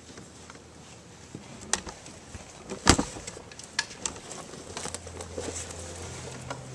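Scattered knocks and clatters in a darkened theatre during a scene change: dishes and furniture are being moved off the stage, with one loud knock about three seconds in. A low steady tone of the next scene's music comes in near the end.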